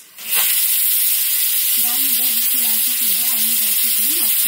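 Aluminium pressure cooker blowing off steam through its weight valve (a cooker 'whistle'), spattering dal froth. The steady, loud hiss starts about half a second in after a brief lull, as the built-up pressure vents.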